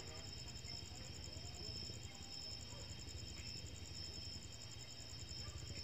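Crickets chirring steadily at a high pitch in a fast, even pulse, over a faint low rumble.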